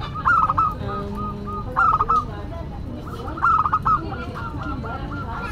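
Zebra dove (perkutut) cooing: three bursts of quick staccato coos about a second and a half apart, with softer coos between them.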